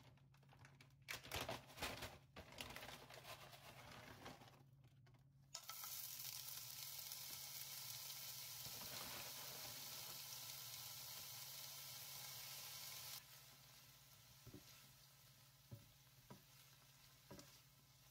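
Chopped green onions frying in hot oil in a nonstick pan, the first step of kimchi fried rice. After a few knocks, a loud sizzle starts suddenly about five seconds in and drops to a softer sizzle about thirteen seconds in. A few sharp taps of a spatula stirring come near the end.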